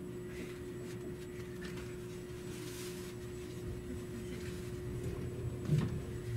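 Cabin noise inside a 683-series express train car pulling away slowly: a steady low rumble with a faint steady hum, and a few soft knocks from the wheels near the end.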